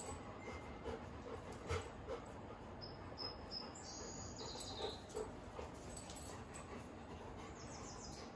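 Golden retrievers playing quietly: soft panting and a few light knocks, the loudest about two seconds in, with faint high-pitched squeaks a few seconds in and again near the end.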